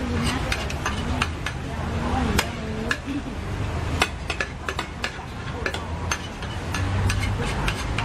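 Two metal spatulas scraping, tapping and clacking against a large flat steel frying pan as egg and squid are chopped and turned on it, a quick irregular run of sharp clicks.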